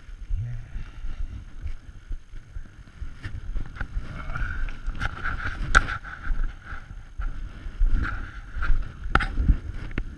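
Footsteps crunching through snow and wind rumbling on the body-worn action camera's microphone, with a few sharp clicks and knocks about halfway through and near the end.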